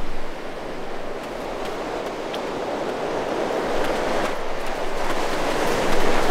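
Sea surf breaking and washing up the beach: a steady rush that swells slightly toward the end.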